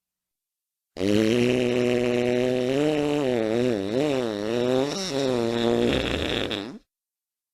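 A single long fart sound effect lasting about six seconds, starting about a second in. It is a low pitched tone that holds steady, wobbles up and down in pitch through the middle, then rises at the end before cutting off suddenly.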